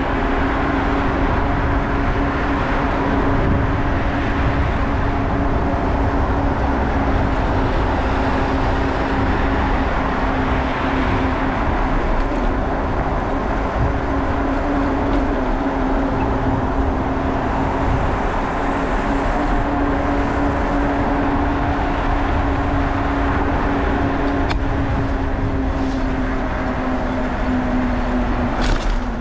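Continuous ride noise from a bicycle moving along the road, with wind on the camera microphone and tyre noise. A steady low hum runs under it and drops slightly in pitch near the end.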